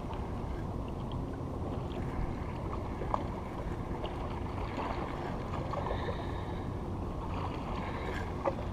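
Steady wind and water noise over open bay water, with a couple of faint clicks.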